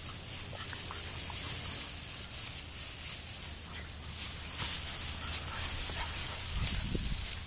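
Dry grass rustling and crackling as Labrador puppies push through it, with a few short, faint puppy whimpers, and a dull bump near the end.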